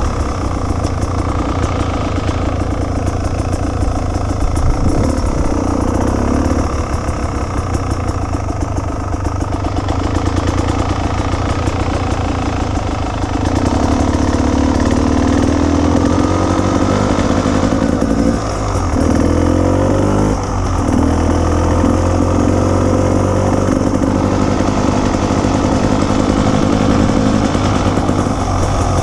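Off-road motorcycle engine running loud and steady while the bike is ridden. The revs rise and fall a few times past the middle.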